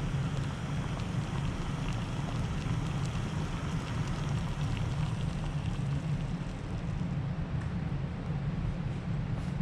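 Jetboil butane canister stove burning steadily with a low rushing noise and faint crackling ticks while heating water, on its 23rd boil from a nearly empty 3.53 oz can.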